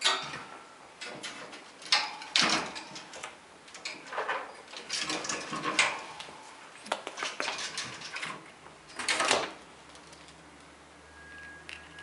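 A squirrel clambering on a wooden hutch's wire-mesh door, claws scrabbling while the metal bars rattle and clink in irregular bursts, quieter near the end.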